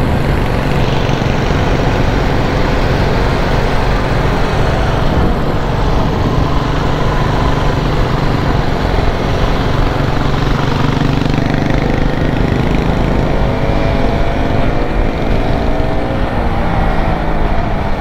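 Motorcycle engine running under way, mixed with wind and road noise. The engine note climbs a little over the last few seconds.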